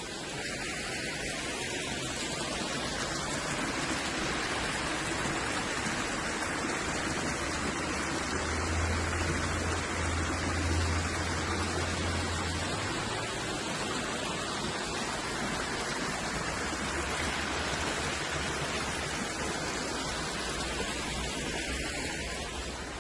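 Steady rushing of water from a low-running waterfall and stream over rocks. A low rumble comes in for a few seconds near the middle.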